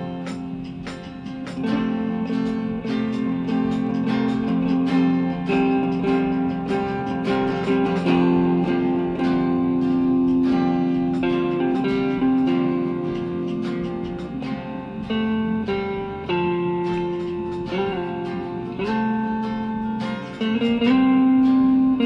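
Guitar jam: plucked and strummed guitar playing held notes, with a few sliding pitch bends near the end.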